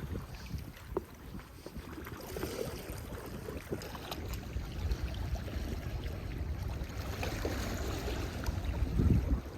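Wind buffeting the microphone, a low rumbling noise that gusts stronger near the end.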